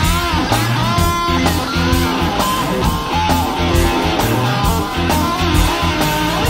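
Live rock band music: an electric guitar plays a lead line with bending notes over bass and drums, with cymbals keeping a steady beat.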